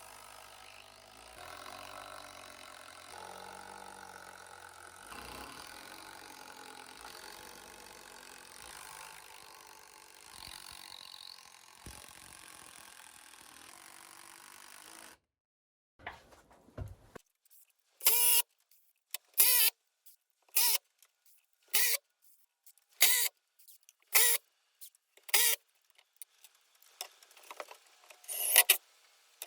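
A steady mixed work noise that cuts off abruptly halfway through. After a short silence come about eight loud, evenly spaced strikes, roughly one a second, each ringing briefly, and a final strike near the end.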